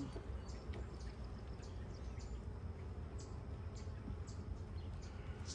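Honeybees buzzing faintly around an open hive over a steady low outdoor rumble, with scattered short high chirps.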